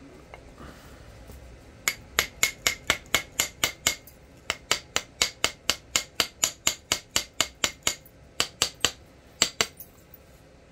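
Rapid, light taps of a knapping tool on chert, about four a second, in runs with short pauses, starting about two seconds in.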